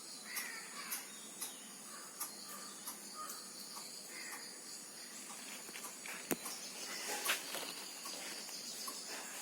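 Steady high-pitched insect calls with faint scattered brief sounds, and a single sharp click about six seconds in.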